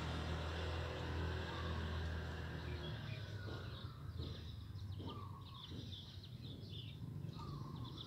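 A vehicle's low rumble fades away over the first three seconds. After that, small birds chirp in short, repeated high notes.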